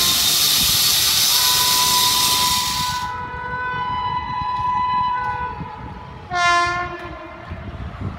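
Horn of an approaching WAP7 electric locomotive: a long, steady blast from about a second in, then a short, louder blast near the end. A steady high hiss cuts off suddenly about three seconds in.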